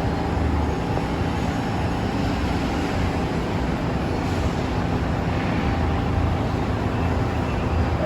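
Steady low rumble and hiss of an R46 subway train standing at the platform, with no changes in pitch or level.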